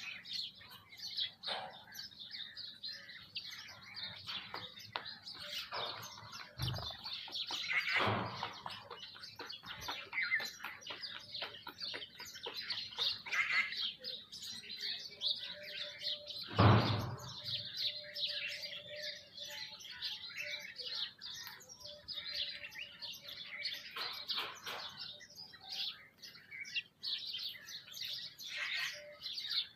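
A flock of small birds, sparrows and mynas, chirping and calling continuously while feeding. Two short thumps break through, a lighter one about 7 seconds in and a louder one about 17 seconds in.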